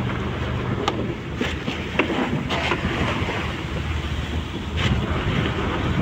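Small fishing boat's engine running with a steady low drone, under wind on the microphone and sea-water noise, with a couple of brief knocks.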